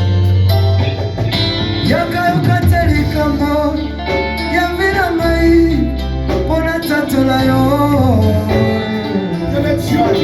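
Music: a sung melody over instruments with a steady bass line.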